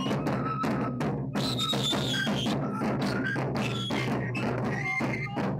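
Andean carnival street band: several vertical wooden flutes play a high melody together over large double-headed drums beaten steadily with sticks.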